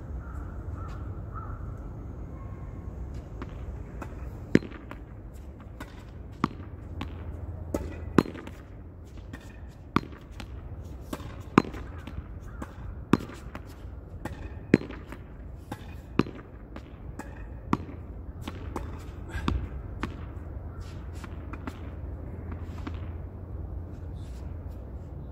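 A ball being hit against a wall over and over: a sharp knock about every one and a half to two seconds, with fainter knocks in between. A steady low rumble runs underneath.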